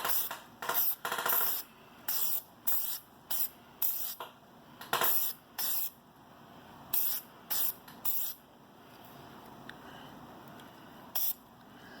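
Aerosol can of red dye penetrant spraying onto an engine block in about a dozen short hissing bursts, with a pause near the end before one last spray. This is the first step of a dye-penetrant crack check on the block.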